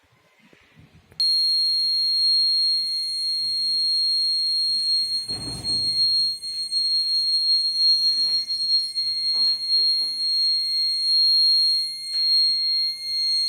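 Wireless magnetic-sensor door alarm sounding: a loud, steady, high-pitched electronic tone starts abruptly about a second in and holds unbroken. A few knocks sound over it, the loudest about four seconds in.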